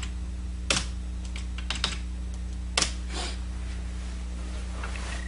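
Keys pressed on a Dell laptop's keyboard to pick the USB drive in the boot menu: a handful of separate clicks in the first three and a half seconds, over a steady low hum.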